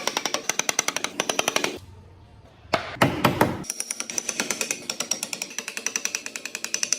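Hand-held power tool working wood with a rapid hammering action, about ten strokes a second. It stops for about a second around two seconds in, then starts again with a louder burst.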